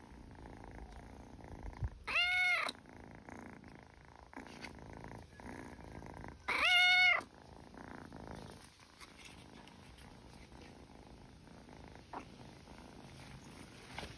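Kitten purring steadily while being stroked, with two loud, drawn-out meows, about two seconds in and again about six and a half seconds in.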